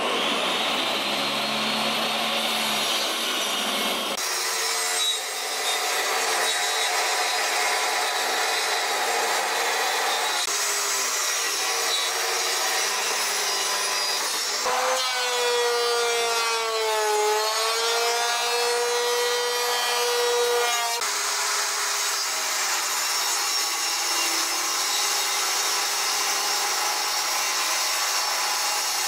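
Power tool cutting and machining pallet pine: a steady motor whine over the noise of the wood, its pitch dipping and recovering under load. The sound changes abruptly every few seconds, as in a run of short takes.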